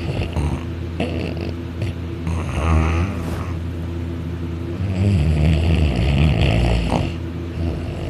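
A boy snoring loudly in deep sleep, lying on his back with his mouth open. There are two snores, a shorter one about two and a half seconds in and a longer one from about five to seven seconds, over a steady low hum.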